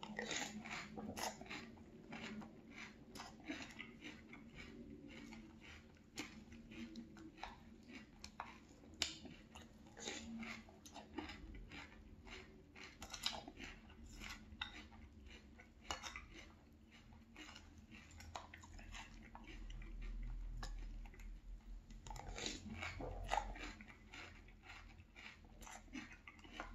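A person chewing a mouthful of frosted corn flakes cereal in milk, with many irregular crisp crunches.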